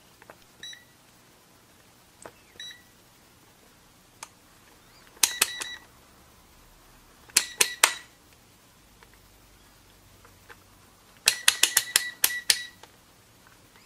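Kaiweets HT118A digital multimeter's rotary function switch clicking through its positions, with the meter giving a short high beep at each click. A few single beeps come in the first seconds, then quick runs of clicks and beeps about five, seven and eleven seconds in.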